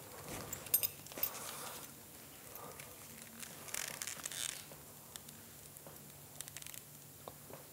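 Leather belt with a metal buckle being pulled out of trouser loops and handed over: buckle clinks under a second in, then soft rustling of leather and cloth and a few light taps.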